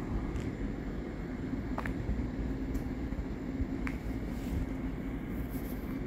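Steady low rumble and hum of a train, with two brief faint high chirps about two and four seconds in.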